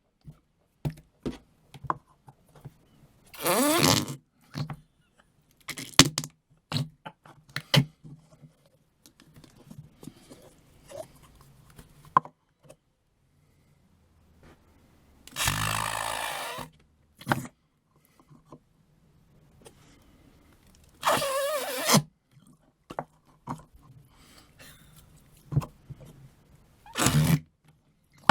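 Noise putty being pressed and squeezed in its plastic pot, letting out fart-like noises: four longer bursts of about a second each, with short clicks and squishes of handling in between.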